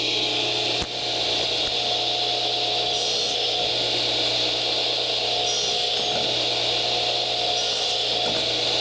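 Radial arm saw running at full speed, its blade set to partial depth and cutting across a pine board for a mitered lap joint. A steady motor hum and blade whine, with a brief higher hiss about every two seconds.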